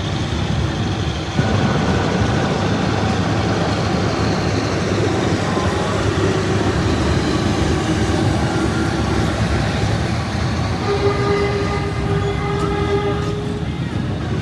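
Passenger train hauled by two D19E diesel-electric locomotives running, with steady engine and rail noise that gets louder about a second and a half in. A held tone sounds for a couple of seconds near the end.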